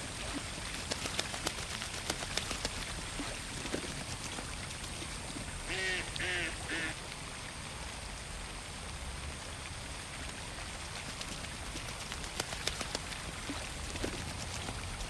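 Ducks quacking on a pond: a quick run of three quacks about six seconds in. Underneath is a steady hiss with scattered faint ticks.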